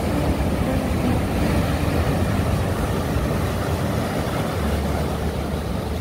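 Sea surf breaking and washing over boulders and pebbles as a loud, steady rush, with a deep rumble of strong wind buffeting the microphone.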